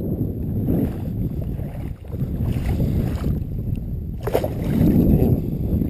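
Low, steady wind rumble on the microphone, with water sloshing. About four seconds in there is a sharp splash as the hands and trout go down into the creek water.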